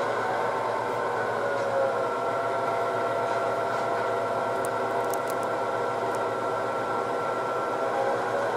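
HO scale model train moving a string of freight cars along the yard track: a steady whir with several held tones. A few faint light clicks come about five seconds in.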